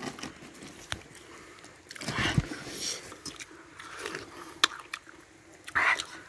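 A man biting into and chewing a piece of pumpkin close to the microphone: irregular wet mouth noises, with a few sharp clicks.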